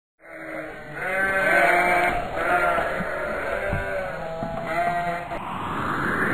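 Sheep bleating, several quavering bleats one after another.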